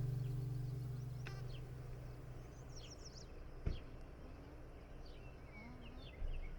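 Acoustic guitar music fading out over the first couple of seconds, leaving faint outdoor ambience with scattered short bird chirps. A single dull knock comes about halfway through.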